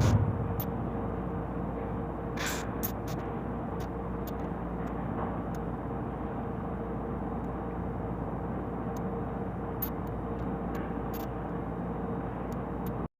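Steady low background noise with a faint steady hum, a short thump at the start and a few faint clicks scattered through it; it cuts off abruptly near the end.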